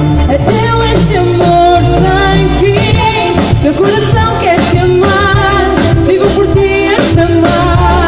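A woman singing lead into a microphone over a live band, with drum kit beats keeping a steady rhythm under her voice; loud, as heard from the audience.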